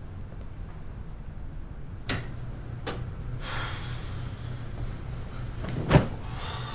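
A person dropping backward onto a bed, landing with one dull thump near the end. It is the loudest sound, heard over a low steady hum, with a sharp click a couple of seconds earlier.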